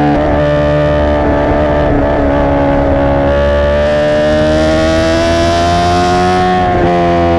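2017 Honda CBR1000RR Fireblade's inline-four engine through a Racefit exhaust, running loud at high revs with its pitch slowly climbing. Near the end there is a brief break and the pitch drops.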